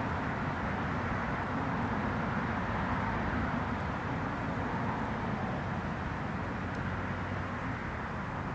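Steady outdoor background noise: an even, low rumble with no distinct events.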